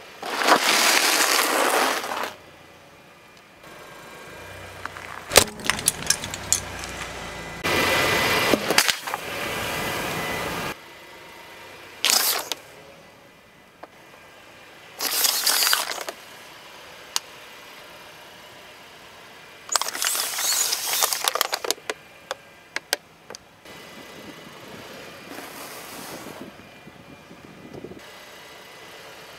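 A car tyre rolling over and crushing objects on asphalt one after another, a cardboard cereal box and plastic soft-drink bottles among them: about seven bursts of crunching and crackling a few seconds apart, with sharp cracks and pops.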